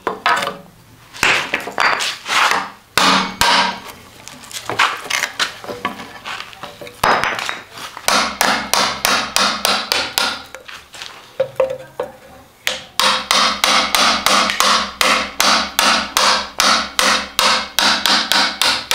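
A chisel paring curled shavings from a hackberry bow stave: a run of short, sharp cutting strokes, uneven at first, then quick and even at about four a second over the last third.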